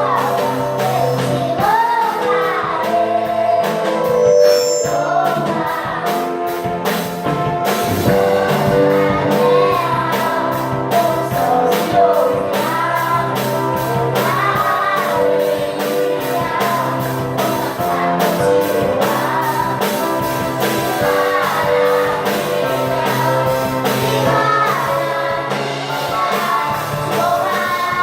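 Music with singing over instruments and a steady beat.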